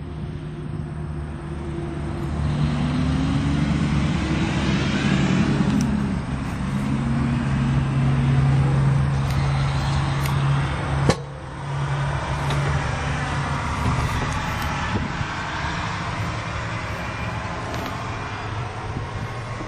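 The six-cylinder diesel engine of a 2013 John Deere 8360R tractor running steadily at idle, with a steady low hum. A single sharp click sounds about halfway through.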